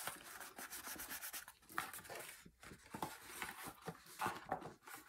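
Hands rubbing and pressing a cardstock gift box to bond its glued corners: soft paper rustles and scrapes with a few light taps.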